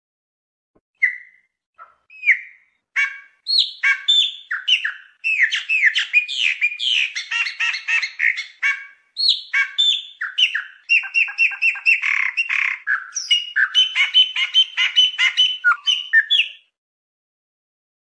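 Chopi blackbird singing: two separate whistled notes, then a long, fast run of varied chirps and whistles that stops suddenly.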